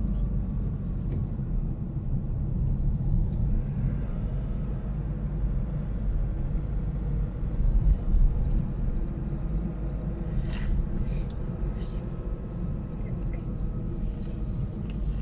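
Steady low rumble of a car's engine and tyres on the road, heard from inside the cabin while driving. A few short sharp clicks come about two-thirds of the way through.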